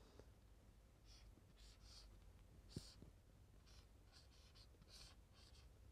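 Felt-tip marker drawing on a whiteboard: a series of faint, short scratchy strokes, with a light tap of the marker tip about halfway through.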